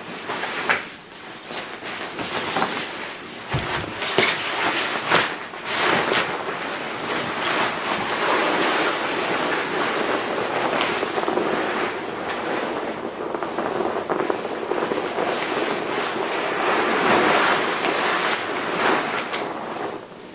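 Crinkling and rustling of an inflated ultralight nylon air pad and a synthetic sleeping bag as a person climbs in and shifts about on them. In the first several seconds there are sharper crinkles and knocks among the rustling.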